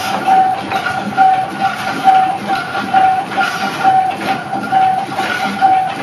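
Background music: a pulsing note repeated about twice a second over a rhythmic, clattering beat.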